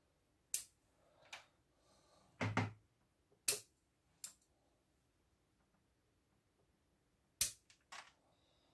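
Bonsai scissors snipping thin twigs of a field elm bonsai: a scattered series of sharp clicks, the loudest near the end, with a brief low thud about two and a half seconds in.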